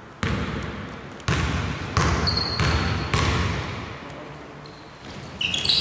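A basketball being dribbled on the court, several bounces about a second apart, each echoing in the hall. Sneakers squeak on the floor near the end.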